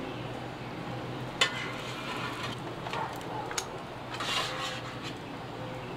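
Stainless steel ladle and hotel pan being handled on a steel griddle: one sharp metallic clink about a second and a half in, a few lighter knocks, and a brief scraping swell a little past the middle.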